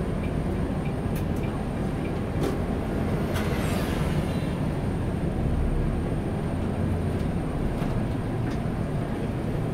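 Volvo 8900 city bus on a B8RLE chassis driving slowly, heard inside the cabin near the front: a steady low engine and road rumble with a faint, steady high whine and a few light rattles.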